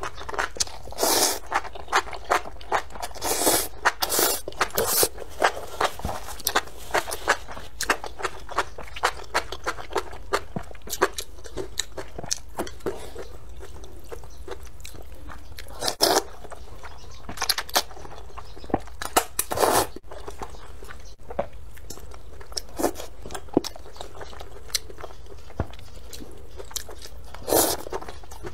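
Close-miked eating of spicy rice noodles and enoki mushrooms: loud slurps of noodles come in short bursts, with chewing, biting and small wet mouth sounds between them.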